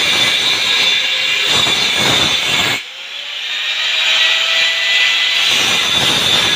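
Angle grinder running against stainless steel, a loud steady grinding hiss. About three seconds in it briefly drops off, then builds back up to full level.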